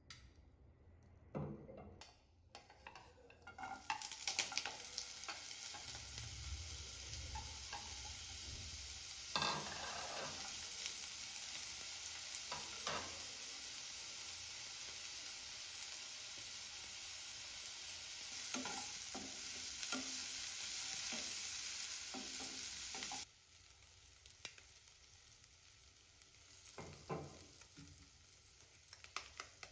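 Sausage slices frying in hot oil in a non-stick wok: a steady sizzle that starts a few seconds in and drops suddenly to a faint sizzle about two-thirds of the way through. Short knocks and scrapes of a wooden spatula against the pan come now and then.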